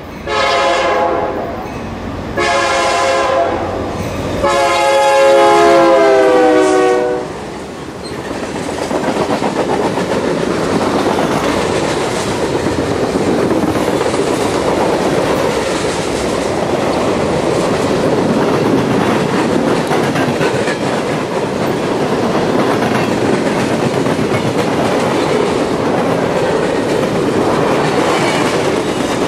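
Union Pacific diesel locomotive's air horn sounding three blasts, each a chord of several notes, the third the longest. From about eight seconds in, the long freight train's cars roll past with a steady clatter of wheels on rail joints.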